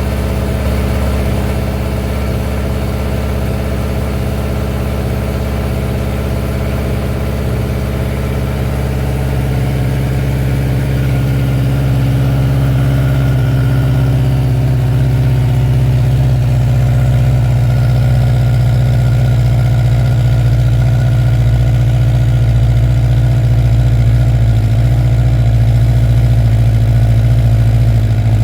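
Honda CB1000F SE's inline-four engine idling steadily just after a cold start, growing slightly louder over the second half.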